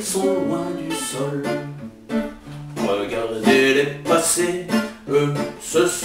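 Acoustic guitar accompaniment in a steady rhythm, low bass notes alternating with plucked chords.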